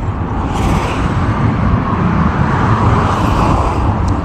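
Steady rumble of road traffic crossing the bridge deck overhead, swelling about two to three seconds in as vehicles pass.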